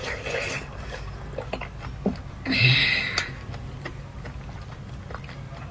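Mouth sounds of eating a spoonful of coconut-milk dessert soup with soft jelly cubes: slurping and chewing with small clicks, louder for a moment about halfway through.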